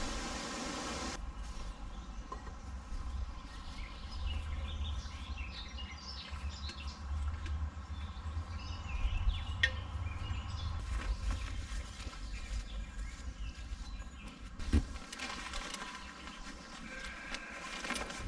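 Outdoor meadow ambience: a low wind rumble with faint bird and insect chirps. A single thump comes about fifteen seconds in, and near the end the roof-top tent's canvas rustles as it is handled and folded.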